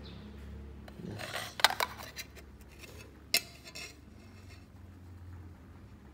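Light metallic clinks and clicks of steel tweezers against silver rings as they are handled: a cluster of clicks a little over a second in, then one sharp click about three seconds in. A low steady hum runs underneath.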